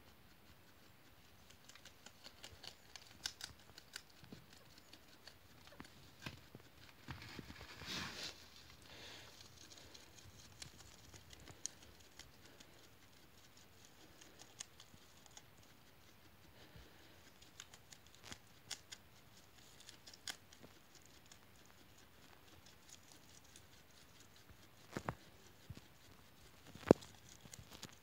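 Guinea pig chewing and crunching vegetables: a quiet, irregular scatter of small crisp clicks and snips. There is a denser bout of crunching about eight seconds in, and a few sharper clicks near the end.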